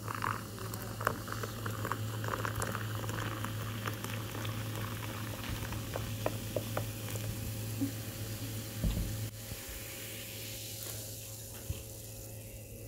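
A fizzy soft drink poured into a glass, its foam fizzing and crackling with many tiny bubble pops. The fizz thins out and quietens near the end, over a steady low hum.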